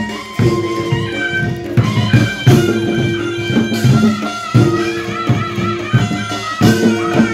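Korean pungmul folk music: drums beat a pattern that repeats about every two seconds, under held melody notes.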